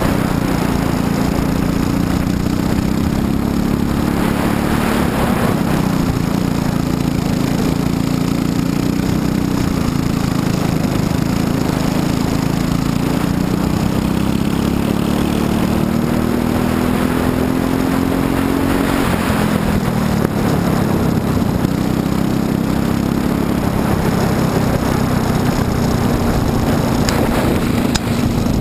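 Briggs & Stratton LO206 single-cylinder four-stroke kart engine running at racing speed, heard onboard, its pitch rising and dipping as the kart goes through corners and down straights.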